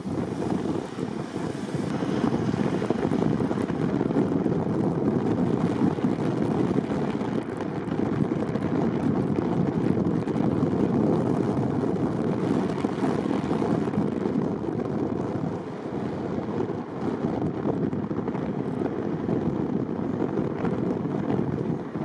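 Steady rumble of tyre and wind noise from a car being driven, dipping slightly partway through.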